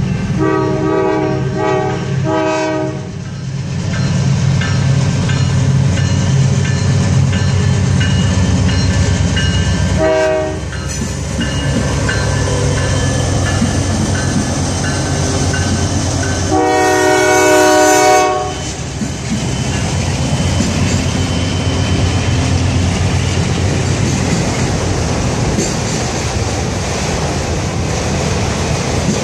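Norfolk Southern GE C40-9W diesel locomotive sounding its multi-chime air horn as it leads a freight train past: a quick burst of short blasts at the start, a brief toot about ten seconds in, and one longer, louder blast later on. The locomotive's diesel engine and the rolling railcars run steadily underneath.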